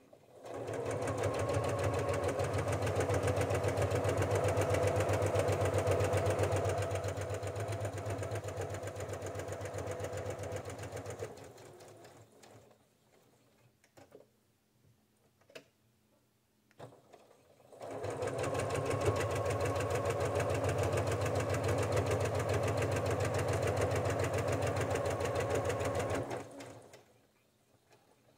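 Janome sewing machine with a walking foot running a straight stitch through layered fabric. There are two long runs of rapid, even stitching, the first about ten seconds and tapering off, the second about eight seconds. A few light clicks fall in the pause between them.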